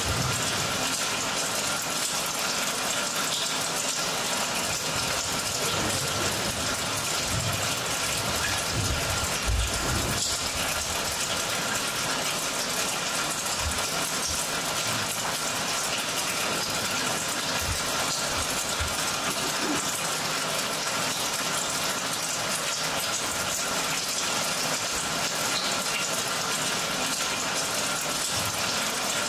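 Steady rushing sound like running water, played as the dance's soundtrack, with a few dull low thumps scattered through the middle.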